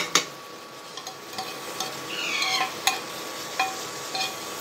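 Fried paneer cubes being tipped and scraped from a non-stick frying pan into an aluminium pan of masala gravy, with a light sizzle from the gravy underneath. Several sharp metal clinks of pan and utensil against the pan rims, the loudest at the very start.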